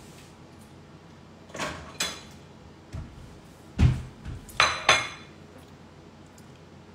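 Dishes clattering in a kitchen: a plate taken down from a cabinet and set down, heard as a few clinks and knocks. The loudest is a dull thump about four seconds in, followed by two ringing clinks.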